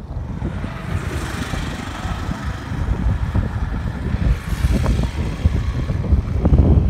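Wind buffeting the microphone over a steady engine drone that grows slowly louder toward the end.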